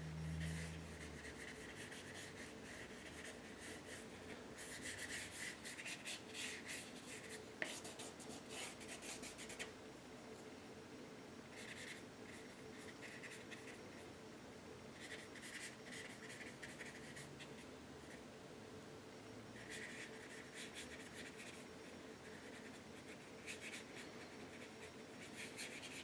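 Paintbrush scrubbing acrylic paint on canvas in scratchy strokes, coming in about six bunches with short pauses between.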